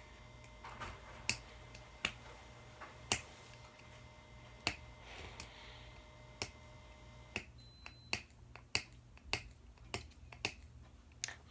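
Sharp clicks and ticks of fingernails picking at and peeling the label off a drink can. They come irregularly at first, then more evenly, about twice a second, in the second half.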